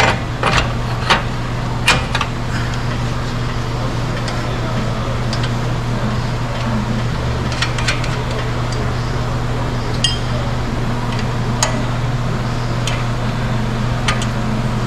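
Scattered metal clinks and taps of hand tools and hardware during work on a pickup's front suspension, about a dozen in all, over a steady low hum.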